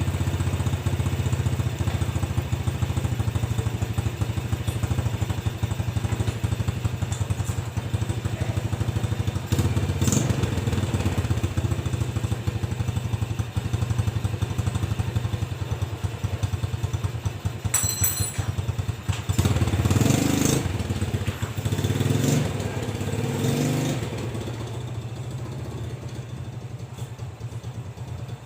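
Yamaha Jupiter Z single-cylinder four-stroke engine idling steadily and smoothly after a rebuild with a new oversize piston, with no knocking left. It has a few brief louder surges about two-thirds of the way through, then runs quieter near the end.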